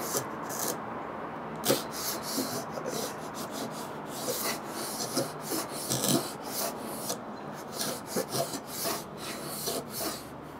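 Veritas small router plane scraping wood out of the bottom of a dado in short, irregular strokes. The plane is still set up for bullnose work rather than for routing.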